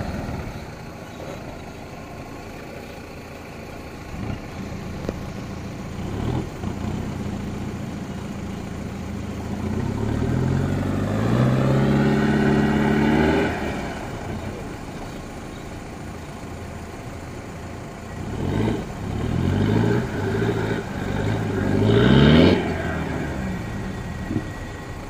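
Mahindra Thar 4x4's engine idling low, then revving under load as it climbs over rock: one long rising rev about ten seconds in, and a run of shorter revs in the last third, the loudest about three seconds before the end.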